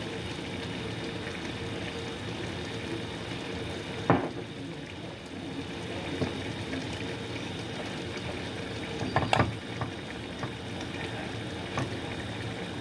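Chicken simmering and sizzling in a thick dark soy sauce in a frying pan as the sauce cooks down. There is a sharp knock about four seconds in and a short cluster of knocks a little after nine seconds.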